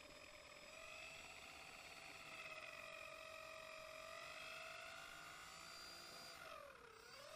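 Faint, steady whine of a small RC aircraft's electric motor and propeller, a single pitch with overtones that wavers gently and dips briefly near the end.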